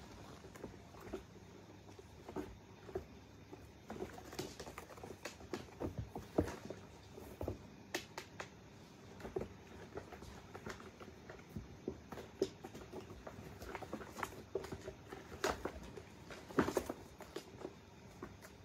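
Kittens' paws scampering and scrabbling on textured scratcher ramps and carpet as they play-fight. The sound is an irregular patter of soft taps and scuffs, with a few sharper knocks.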